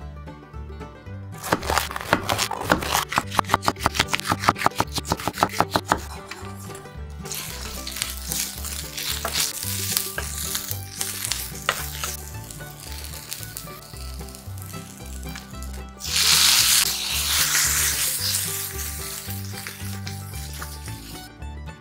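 Green peppers stir-frying in sesame oil in a hot nonstick frying pan, sizzling as a wooden spatula turns them. About sixteen seconds in, the sizzle jumps louder as the seasonings go into the pan, then slowly eases. Early on, a quick run of sharp knocks lasts several seconds.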